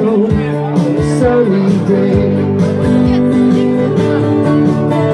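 Live acoustic guitar strummed in a steady rhythm, with a voice singing along.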